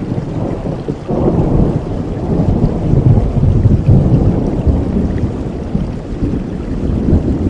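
Thunder rumbling over steady heavy rain. The rumble swells about a second in and stays loud through the middle before easing slightly.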